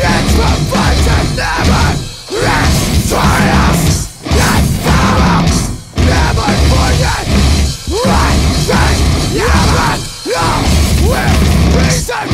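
Heavy metal band playing: electric guitars, bass and drums, the riff broken by short stops about every two seconds.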